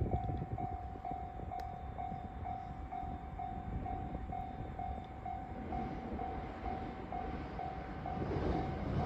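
Japanese level-crossing warning bell ringing, one tone repeating about twice a second. Near the end it is joined by the growing rumble of an approaching JR-West 521-series electric train.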